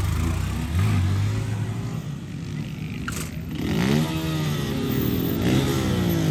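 Motorcycle engines running, first at a steady hum. From about four seconds in, several bikes rev and accelerate at once, their pitch rising and falling across each other as the riders hold wheelies.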